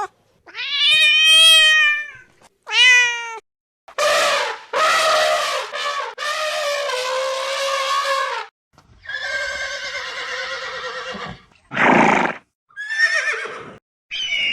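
Animal calls one after another, about six separate pitched calls with short gaps, the middle one long and harsh.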